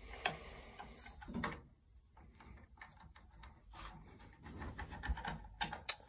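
A few sharp plastic clicks with handling noise, spaced a second or more apart, as a wire connector is worked into the socket of a Resideo millivolt gas valve on a water heater.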